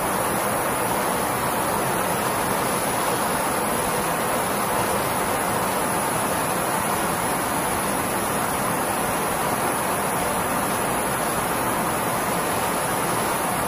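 Steady rushing noise of jet aircraft in flight, engine and airflow together, with a faint high whine held throughout.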